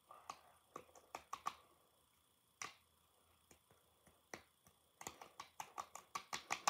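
Light, sharp pats of bare hands on the cheeks, a short run at the start and a few scattered ones, then a quicker run of about six a second near the end.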